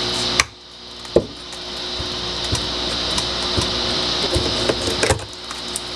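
Locking pliers twisting and pulling a rusted brake line union out of a car's underbody: scattered clicks and crunches of corroded metal giving way, over a steady background hiss.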